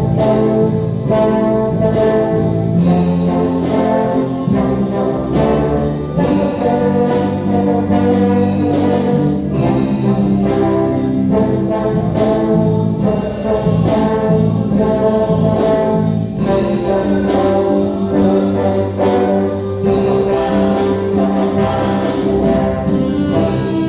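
Orchestra playing with prominent brass, trombones and trumpets to the fore, over a steady beat.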